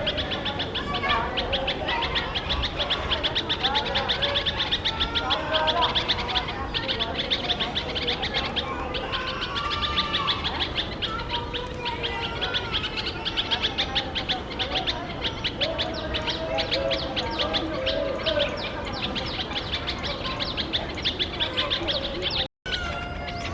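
A mixed flock of small birds (Indian white-eyes, bulbuls, sparrows and common mynas) giving alarm calls at a cat hidden in a bush. A fast, steady train of high chirps, roughly ten a second, runs throughout, with lower wavering calls mixed in. The sound breaks off for a moment near the end.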